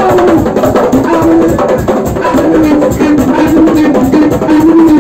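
Live music with a djembe and other hand drums playing a dense, fast rhythm under a wavering melodic line.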